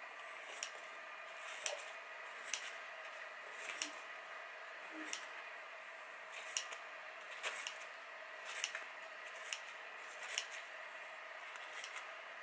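Freshly sharpened scissors snipping into a paper towel, about a dozen crisp cuts roughly once a second, as a test of the edge.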